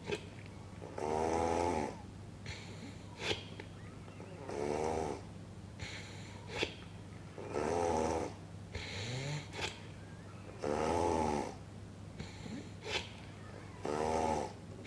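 Snoring: five loud buzzing snores, evenly spaced about three seconds apart, with a short sharp noise between each.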